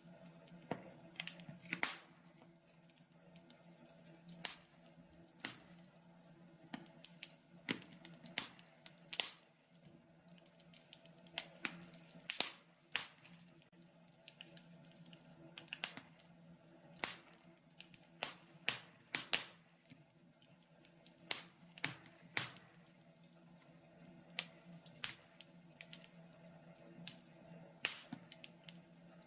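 Fire crackling in a fireplace: sharp, irregular pops and snaps, sometimes several a second, sometimes with a pause of a second or two.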